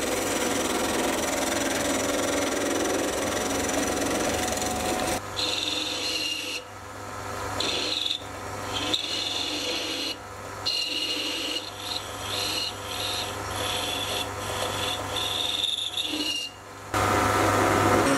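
Sieg C3 mini metal lathe running with a steady motor hum while a turning tool cuts a cast aluminium part. The cutting noise starts and stops in short stretches, with a high whine during the cuts. Near the end a twist drill bores into the part's centre.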